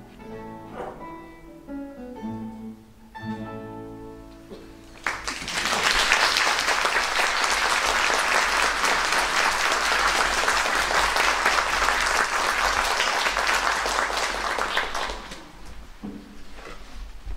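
A classical guitar quartet plays the closing notes of a piece, the last chord ringing out about four seconds in. Audience applause then breaks out suddenly and carries on for about ten seconds before dying away.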